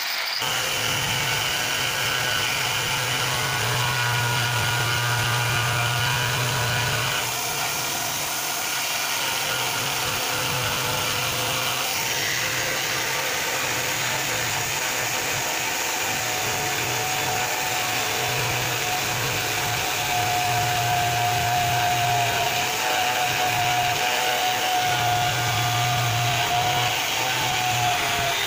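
Electric marble-working tools running steadily as a marble piece is ground and shaped: first a hand-held grinder, then a table-mounted finishing machine's spinning spindle with the piece pressed against it. The sound is a continuous motor whine and grinding that changes character about 7 and 12 seconds in.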